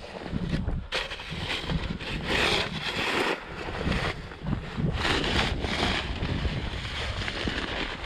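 Wind buffeting the microphone: a steady low rumble with gusts that swell about two seconds in and again about five seconds in.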